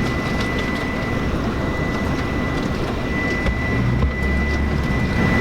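Steady road and engine noise of a truck driving, with a faint, steady high whine over a low rumble.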